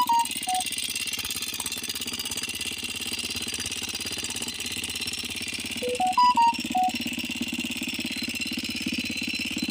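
Bajaj Dominar 250's single-cylinder engine idling steadily with a fast, even mechanical ticking that persists once warm. The owner takes it for the valve lifters (botadores) not having pumped up. A brief run of pitched notes sounds at the start and again about six seconds in.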